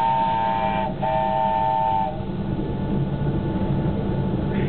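Park railway train's whistle sounded in two blasts of about a second each, a held chord of close tones, over the steady running rumble of the train.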